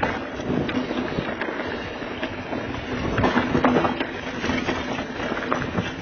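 Diamondback Mission mountain bike riding down a rough dirt trail: tyres rolling and crunching over dirt, roots and rocks, with irregular sharp clatters and knocks from the bike at each bump.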